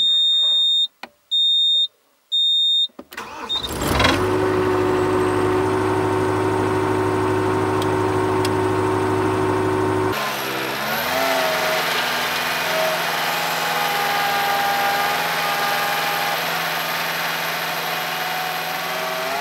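Three short high-pitched beeps, then a vehicle engine starts about four seconds in and settles into a steady idle. About ten seconds in, its note shifts, briefly dipping and rising, and then runs steady again to the end.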